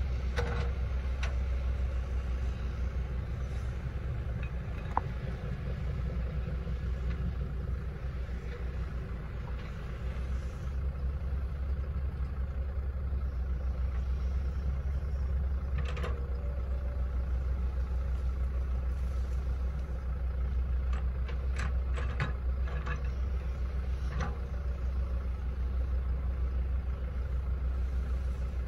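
Hitachi Zaxis 110 MF excavator's diesel engine running steadily while it digs a trench, with a few short knocks scattered through, several of them close together in the second half.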